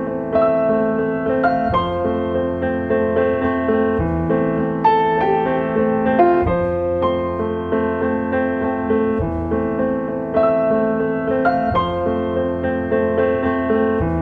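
Background piano music, an unbroken run of notes and chords.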